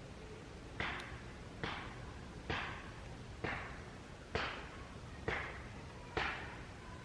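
Sharp smacks repeating at a steady pace, about one a second, each trailing off in a short hiss.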